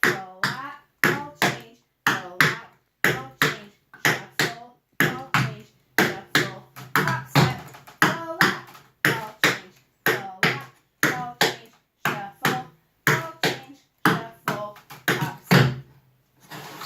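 Tap shoes striking a hard floor in a quick, even rhythm: the brush, step, ball change, shuffle combination danced at a faster tempo, each tap a sharp click with a short ring.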